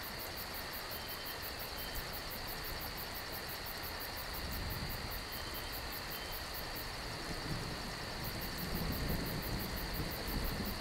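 Woodland ambience: a steady insect chorus with a high, fast, evenly pulsing note over a low rumble.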